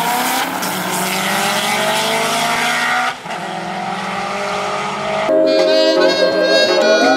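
Race cars at full throttle accelerating down a drag strip, their engine note climbing in pitch. The climb breaks once about three seconds in, then rises again. Background music takes over about five seconds in.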